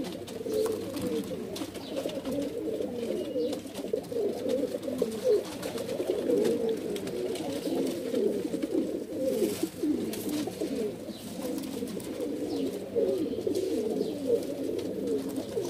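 A flock of domestic pigeons cooing together, many overlapping warbling coos without a break.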